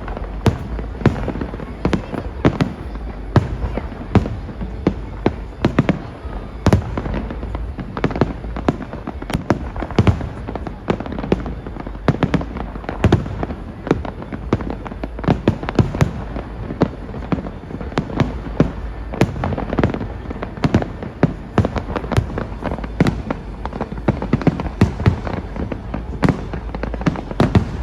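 Aerial fireworks going off in quick succession: sharp bangs and crackles, often several a second, each with an echoing tail, over a constant low rumble.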